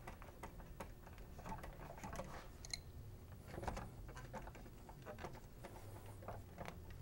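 Faint, irregular small clicks and light metallic taps: an adjustable wrench loosening the brass output fitting on an oxygen concentrator's compressor head, and hands handling the coiled metal tubing.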